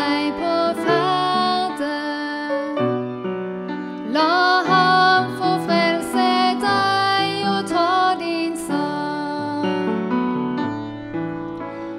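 A woman singing a Norwegian song into a microphone, accompanied on an upright piano. The voice pauses briefly about three seconds in while the piano carries on.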